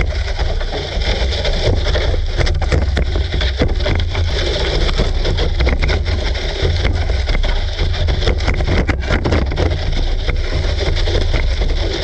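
GPTOYS S912 RC car driving over grass, heard from a camera riding with it: steady motor and drivetrain noise with a deep rumble and frequent rattling knocks from bumps.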